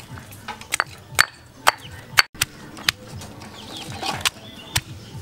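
Stone pestle pounding red shallots in a stone mortar: sharp knocks about twice a second. Chickens cluck in the background.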